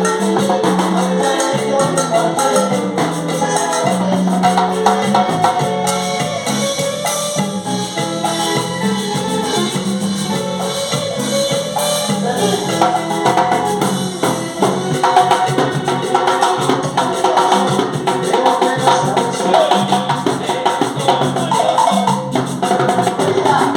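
Latin music with hand percussion and maracas playing steadily.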